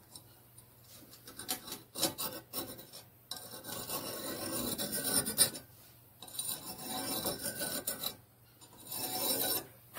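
Steel caliper jaw scraping along a lawnmower-blade steel strip, scribing a line to mark the blade's width, in about four long strokes.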